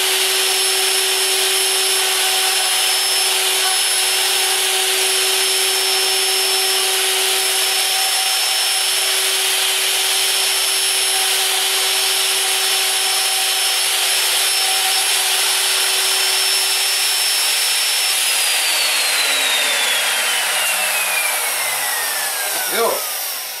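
Wood router on a lathe bat-duplicator cutting a spinning wooden bat, a loud steady high whine with a rushing cut. About eighteen seconds in the router is switched off and its whine falls steadily in pitch as it spins down, with a single knock near the end.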